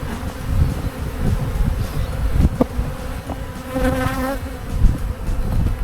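Many honeybees buzzing around an opened hive, agitated as the frames are worked. A little under four seconds in, one bee passes close with a louder, wavering buzz.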